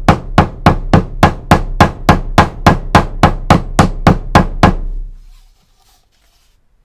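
Hammer tapping rapidly and evenly, about three strikes a second, flattening the folded pleat of a pared leather corner tip on a book-cover board; the taps stop about five seconds in.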